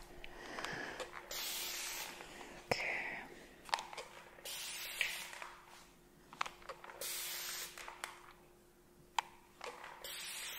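Four short bursts of spray onto hair, each under a second and about three seconds apart, with a few light taps between them.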